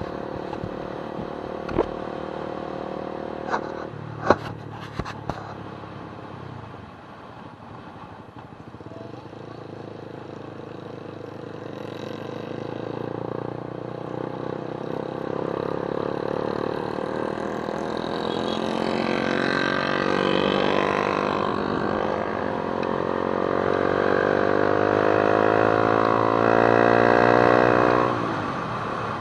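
A vehicle engine running while under way, its pitch climbing slowly for about twenty seconds as it speeds up, then dropping suddenly near the end. A few sharp knocks come in the first few seconds.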